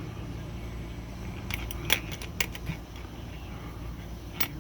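A few light clicks and taps of small metal typewriter parts being fitted into the Olympia SG-3 paper injector assembly by hand: a quick cluster a couple of seconds in, the loudest about two seconds in, and one more near the end, over a steady low hum.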